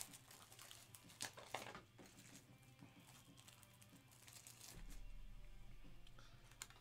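Mostly near silence, with faint crinkling and a few light ticks as foil trading-card packs and cards are handled. A faint steady hum comes in about five seconds in.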